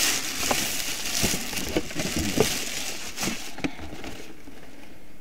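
Packaging crinkling and rustling as it is handled, with scattered sharp crackles, fading away over the last second or so.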